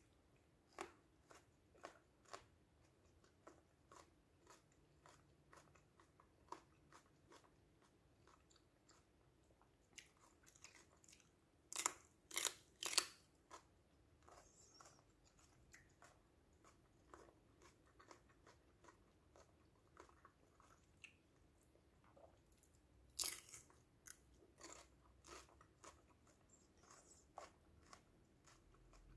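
Chewing of crisp raw yellow bell pepper slices: a steady run of soft crunches, with louder crunching about twelve seconds in and again near twenty-three seconds.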